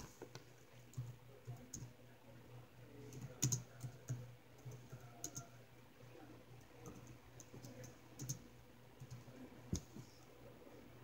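Typing on a laptop keyboard: scattered light key taps and clicks at an uneven pace, a few of them louder, over a low steady hum.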